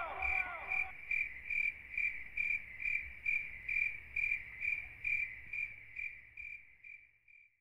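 Crickets chirping in an even rhythm, about two and a half chirps a second, fading out near the end: the stock 'crickets' effect for an empty, silent crowd.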